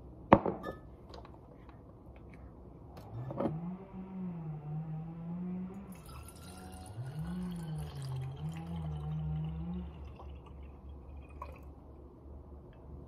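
Glassware knocks sharply on the countertop twice, then liquid is poured from a glass measuring cup through a silicone funnel into a glass spray bottle, with a fine hiss of pouring. Beneath it a low wavering hum rises and falls for several seconds.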